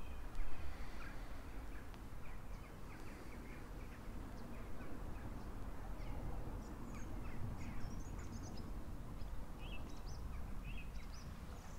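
Outdoor ambience of several birds chirping and singing in short, scattered calls over a steady low rumble.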